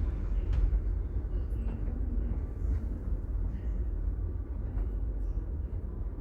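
Railway ambience: a steady low rumble with a few faint scattered clicks, typical of a passenger train running or standing in a station.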